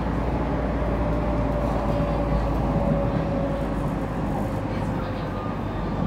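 Train carriage running along an elevated track, heard from inside through the window glass: a steady rumble with a faint whine that falls slightly in pitch.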